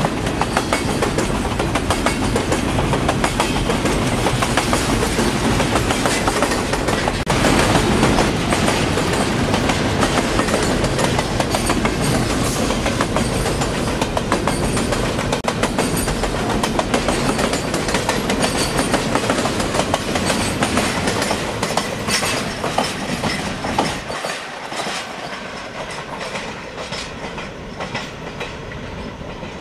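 BNSF double-stack container freight cars rolling past: a steady rumble with a rapid clickety-clack of wheels on the rails. It fades from about 24 seconds in as the end of the train pulls away.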